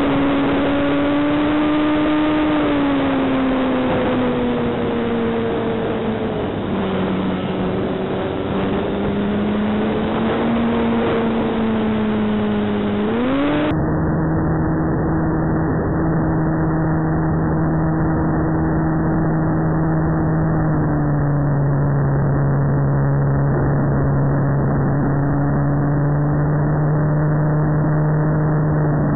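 Electric motor and propeller of a ParkZone Sukhoi SU-29MM RC plane, heard from on board in flight as a steady whine that slides down and back up with the throttle. From about halfway it is deeper, duller and steadier, and drops a little further near the end.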